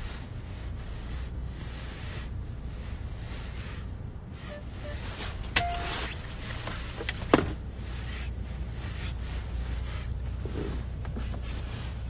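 Steady low rumble inside a moving car's cabin, with two sharp clicks about five and a half and seven and a half seconds in.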